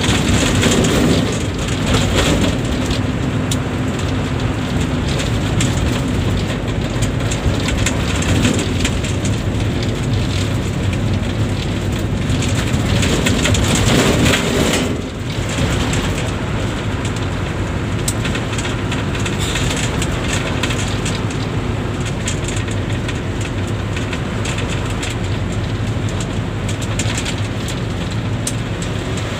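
Steady engine hum and road noise of a moving bus, with a swell about halfway through and a brief drop just after it.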